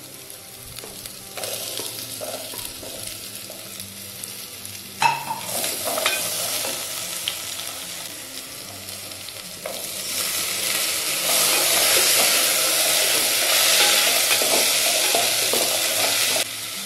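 Chopped vegetables frying in hot ghee in an aluminium pot, sizzling while a wooden spatula stirs and scrapes them. There is a sharp knock about five seconds in, and the sizzle grows louder from about ten seconds in as the vegetables are stirred through.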